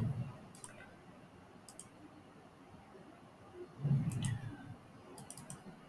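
A few sparse, quiet clicks of a computer mouse and keyboard being worked, with a faint low murmur about four seconds in.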